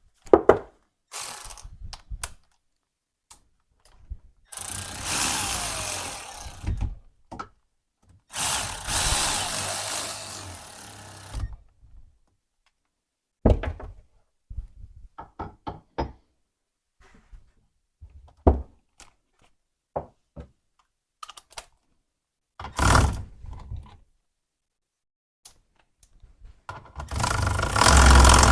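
Steel parts and hand tools of a Kurt milling vise clanking and knocking as its jaws are fitted. Short scattered knocks and clicks, with two longer stretches of continuous mechanical noise a few seconds each, and another starting near the end.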